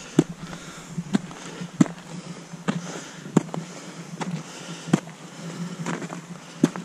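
Footsteps in ice cleats crunching on packed snow, a sharp step about once a second, over a steady low hum.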